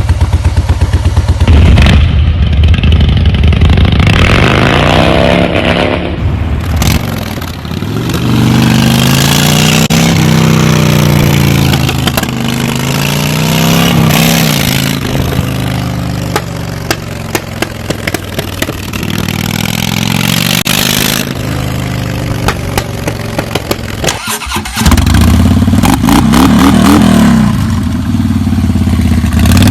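Harley-Davidson V-twin motorcycle exhaust. It starts with a fast, even idle beat, then is revved up and down again and again, the pitch rising and falling. A brief break about 24 seconds in is followed by loud engine sound again.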